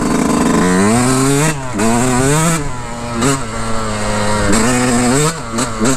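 Yamaha YZ125 two-stroke dirt bike engine revving up and down several times in second gear as the bike pushes through deep water.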